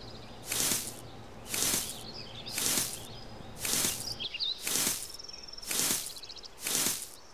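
Dry straw rustling and crackling as it is pulled out, in seven even strokes about a second apart. Faint bird chirps and a short insect trill sound in the background.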